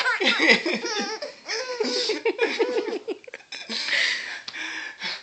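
Baby girl laughing in a string of quick giggles, then breathier laughter near the end.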